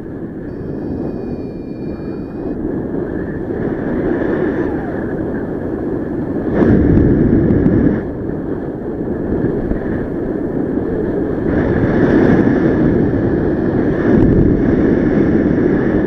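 Wind buffeting the microphone of a camera carried in flight under a paraglider, a loud rushing noise that swells in gusts, strongest about a third of the way in and again in the last few seconds. A faint steady high tone runs underneath.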